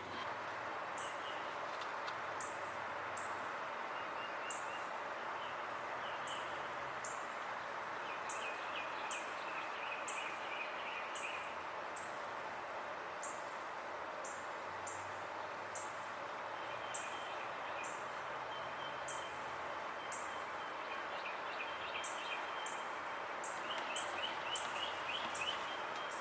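Outdoor background ambience: a steady hiss of distant noise with birds chirping and trilling now and then, strongest in bursts about a third of the way in and again near the end. Faint short high ticks repeat throughout.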